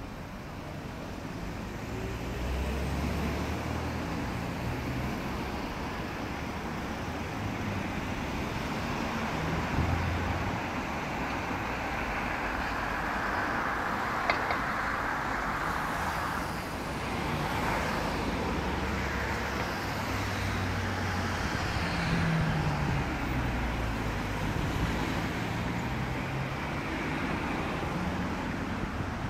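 Street traffic: cars driving past, a steady wash of engine and tyre noise that swells a little before the middle as a vehicle goes by.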